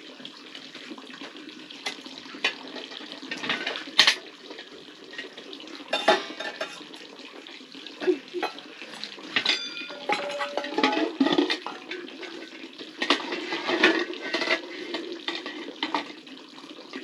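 Steel ladle and metal cooking pots clattering: scattered knocks and scrapes of cookware being handled and set down, with one pot ringing briefly about nine seconds in.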